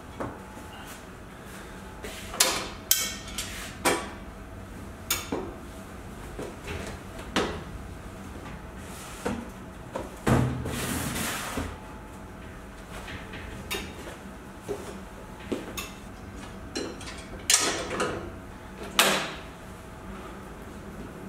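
A string of separate clunks and knocks from handling a lifting trolley with a fold-up metal step platform, as someone steps on and off it and sets cardboard boxes on steel shelving. A longer scraping-rustling sound comes about halfway through.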